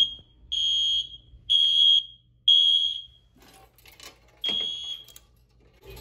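Wheelock MIZ mini-horn sounding a fire alarm on backup battery power. It gives high-pitched beeps about a second apart, three in a row, then after a pause with a short rattle, one more beep.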